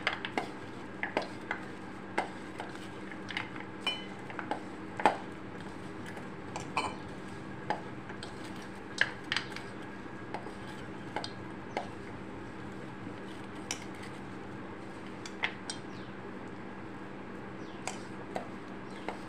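Peanuts being mixed by hand with flour and spices in a stainless steel bowl: irregular clinks and taps of fingers and nuts against the steel, over a steady low hum.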